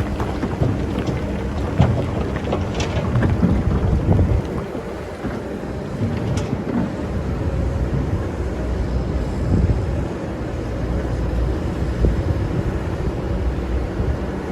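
Excavator engine running steadily, with scattered knocks and rattles from the machine digging sand.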